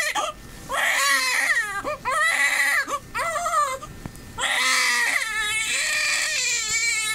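Newborn baby crying in a series of high wails with short breaths between them, the last one long and drawn out from about halfway through.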